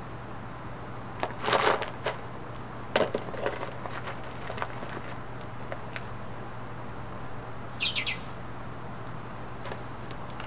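Control-room ambience: a steady low hum with scattered short clicks and knocks. The louder clattering comes about a second and a half in, and a brief high falling squeak comes about eight seconds in.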